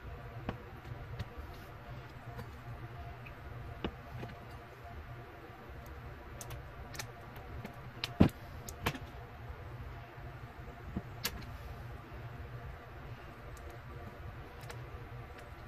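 Knife cutting through a slab of chocolate-topped fudge on a plastic cutting board: scattered clicks and taps of the blade against the board, the sharpest pair a little past halfway, over a steady low hum.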